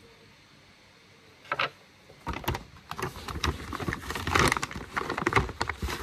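A paper bag being handled: after a quiet start, a short rustle about a second and a half in, then steady crinkling and crackling of the paper.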